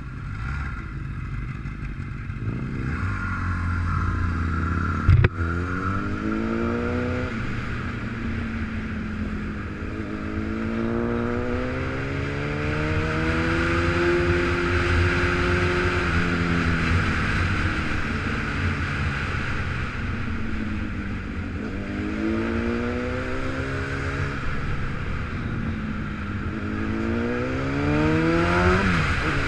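Motorcycle engine pulling away from a stop and accelerating, its pitch rising in several long runs and dropping between them as the rider shifts and eases off, over steady wind noise. A single sharp knock about five seconds in.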